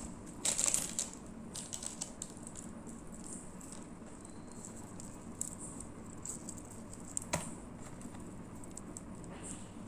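Small clear plastic jewellery packets and metal earrings being handled on a table. A brief crinkle comes about half a second in, followed by scattered light clicks and taps, with one sharper tap about seven seconds in.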